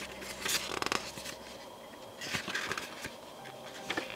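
Paper instruction booklet being unfolded and its pages leafed through by hand, rustling in a few short bursts: about half a second in, again around two and a half seconds, and briefly near the end.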